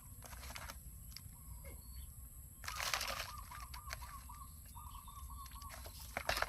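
A bird calling in two warbling trills near the middle, over a short burst of scuffing, rustling noise.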